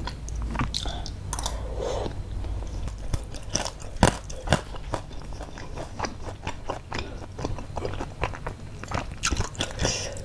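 Close-miked wet chewing and biting of chewy tapioca meatballs (baso aci) and fried meatball strips (basreng), with many small mouth clicks and smacks. A single sharp click comes about four seconds in.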